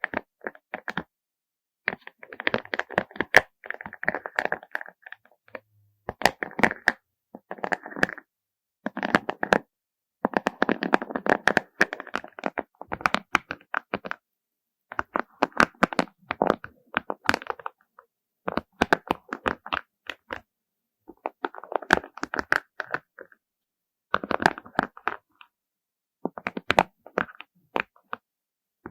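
Small beads clicking and clattering against one another as they are handled, in about a dozen bursts of rapid clicks, each a second or two long, with short pauses between.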